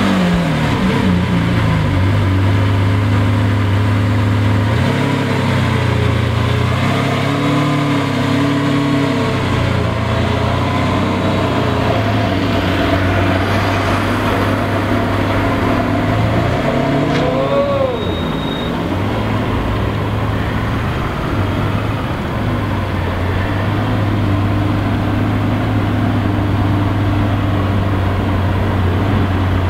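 Lamborghini Aventador LP700-4's V12 engine running just after start-up, its idle falling and settling in the first second. It runs steadily at low speed with small changes in pitch, and gives one short rev that rises and falls about 18 seconds in.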